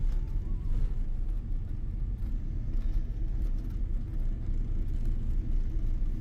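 Steady low rumble of an airliner cabin.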